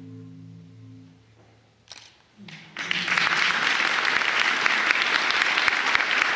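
The final low marimba notes ring and die away over about a second and a half. After a short hush, an audience starts applauding about three seconds in and keeps clapping steadily.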